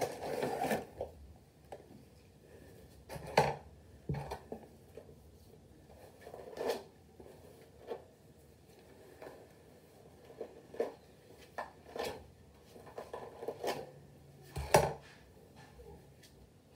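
Scattered handling noises: short taps, knocks and rustles every second or two as hands work with hair and handle small objects, the loudest knock near the end.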